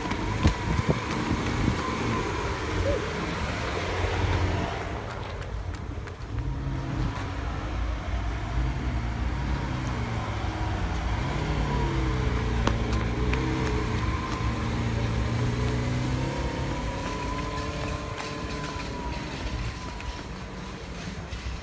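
Lamborghini Aventador S's V12 engine running at low revs, its pitch dipping and rising a little as it idles. It is clearest from about five seconds in and eases off near the end.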